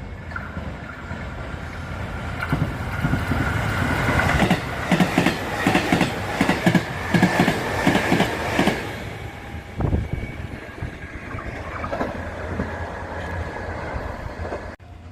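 Sanyo Electric Railway train passing, its wheels clacking over rail joints in a quick run of beats around the middle, over a steady high whine. The sound builds, then fades away.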